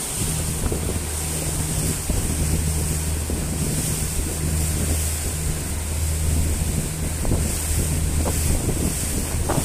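Speedboat engine running with a steady low drone while under way, with water rushing past the hull and wind buffeting the microphone.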